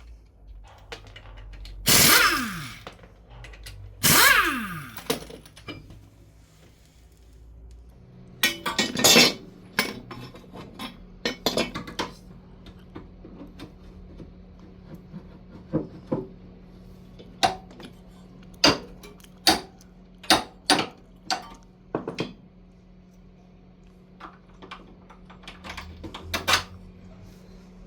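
Hard objects being handled, with sharp clinks and knocks. Two louder clattering bursts come early, then a long run of separate knocks, over a steady low hum that starts about a third of the way in.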